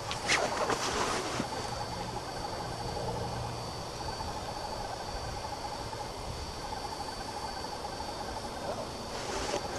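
Insects chirring faintly and steadily. Brief rustles come just after the start and again near the end.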